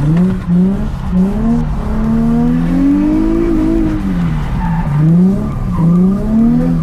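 Nissan 350Z's V6 engine revving hard during a drift. Its pitch climbs steadily for about three seconds, falls away, then comes back in several quick rises and drops.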